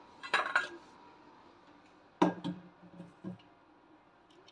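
Quiet kitchen handling while pork in an air fryer basket is basted: a short scrape near the start, a sharp knock about two seconds in, then a few faint clicks.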